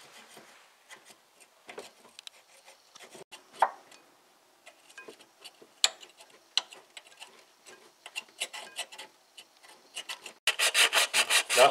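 Old silicone sealant being scraped off the water pump mounting face of a 1.2-litre engine with a pointed scraper: faint, irregular scratching and small clicks. About a second before the end, coarse sandpaper starts rubbing over the metal face in quick back-and-forth strokes, suddenly much louder.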